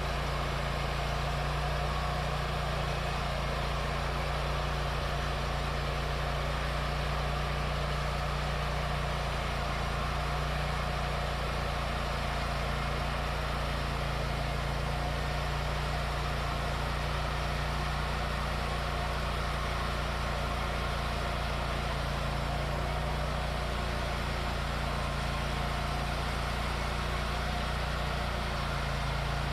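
Wood-Mizer LT40 band sawmill running steadily, its engine driving the band blade through a hickory log. The blade is not cutting as it should and is leaving wavy cuts.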